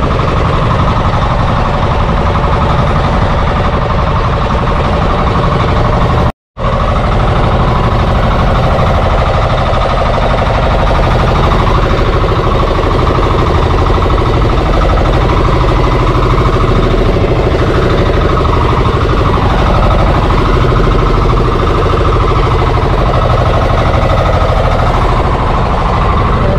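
Fishing boat's engine running steadily and loudly close by, with a brief cut to silence about six seconds in.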